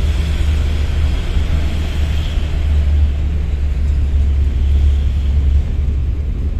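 Cabin noise inside a moving angkot minivan: the engine and road give a steady low rumble with a noisy hiss above it.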